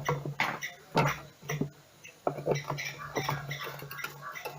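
Hand tools clicking and scraping on metal while a nut inside a washing machine is worked loose: a string of short, irregular clicks over a steady low hum.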